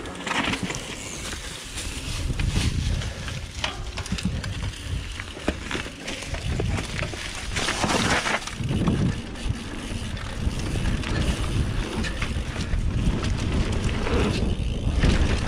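Mountain bike riding fast down a dirt trail: tyres rolling over packed dirt and dry leaves, with wind buffeting the microphone and scattered knocks and rattles from the bike over bumps.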